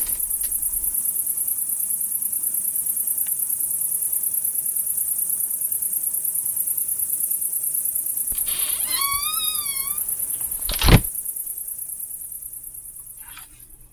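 A steady, high-pitched pulsing hiss, with a warbling, wavering tone about nine seconds in and a single loud thud about eleven seconds in, after which the sound fades out.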